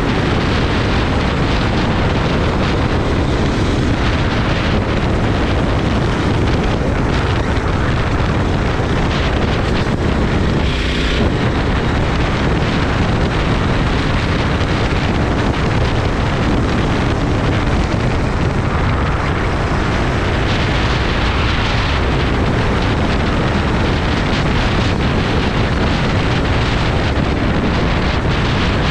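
A racing kart running at speed on track, heard from onboard: loud, steady wind buffeting on the microphone covers the kart's engine.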